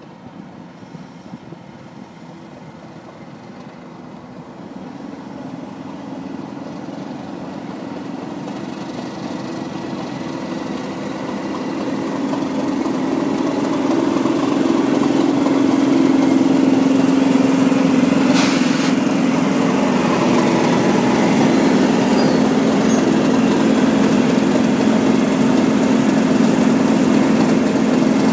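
Diesel locomotives in Direct Rail Services livery, a Class 37 leading several more coupled behind, approach and pass slowly. Their engines make one steady low drone that grows louder for about the first fifteen seconds and then holds as they go by close at hand. There is a short sharp burst of hiss about eighteen seconds in.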